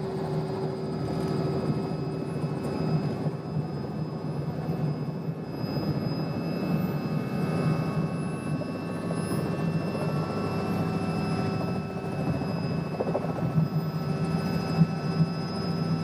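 Turbine helicopter running: a steady engine and rotor noise with thin, steady high-pitched whines from the turbine.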